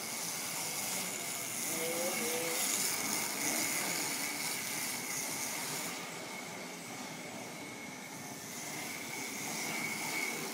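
Electric motors of a home-built self-balancing scooter (250 W kid's-scooter motors) whirring, with a steady high whine over a hiss of machine noise. The whine fades in the middle and grows louder again near the end.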